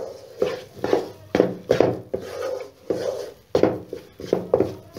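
Wooden slotted spatula stirring and scraping a thick besan, ghee and milk paste around a non-stick wok, in repeated strokes roughly twice a second, as the chickpea flour is slowly roasted (bhunai).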